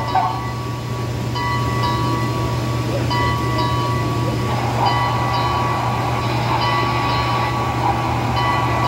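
HO-scale Broadway Limited model of Southern 610 steam locomotive running, its onboard sound system playing steam-locomotive sounds through a small speaker, over a steady hum. A short ringing tone repeats about every half second.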